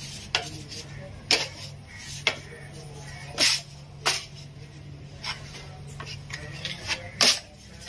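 Short, sharp clicks and scrapes of a steel putty blade against a puttied wall, about seven in all at uneven spacing, the loudest near the end. A low steady hum runs underneath and stops shortly before the end.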